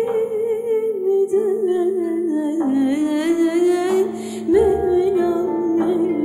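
Live harp-ensemble music: a slow, wavering melody line without words over a steady low drone, with harp notes and a low frame-drum stroke about a second in and again about four and a half seconds in.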